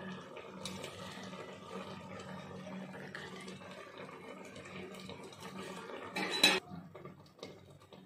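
Dal bubbling steadily in a steel pot on a gas burner as pieces of dough are dropped into it. About six seconds in, a steel spoon clatters briefly and loudly against the pot.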